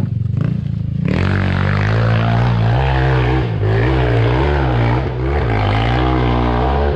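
Enduro motorcycle engine running hard near the microphone: about a second in the throttle opens and it gets suddenly louder, then the engine pitch keeps rising and falling as the rider works the throttle.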